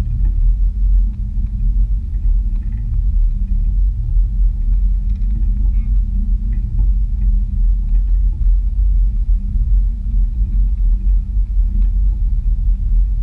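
Wind buffeting the microphone of an action camera mounted on a parasail harness frame in flight: a loud, steady low rumble.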